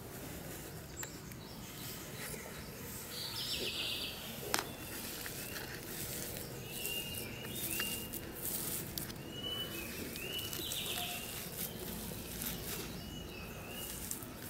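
Small birds chirping again and again in short arching notes, with scattered crackles and clicks from hands pressing damp potting mix and granules around a potted tree, and one sharper knock about four and a half seconds in.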